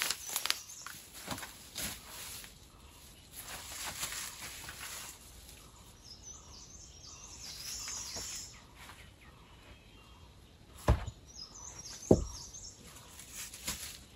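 Ferns and undergrowth rustling and crackling as someone pushes through them and steps down into a rocky cave mouth, with birds chirping in the background. Two sharp thumps come near the end, about a second apart.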